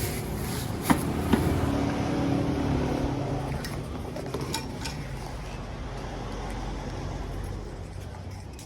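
A motor vehicle running nearby, its engine rumble swelling and then slowly fading away, after two sharp clicks about a second in.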